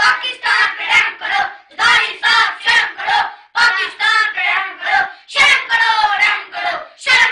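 A group of children chanting together in short, rhythmic phrases.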